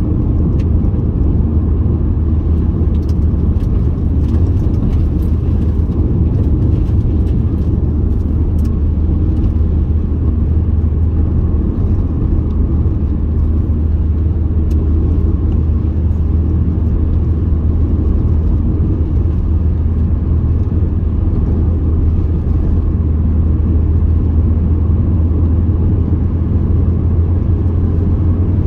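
A car travelling at a steady speed: a constant low rumble of engine and road noise that does not change.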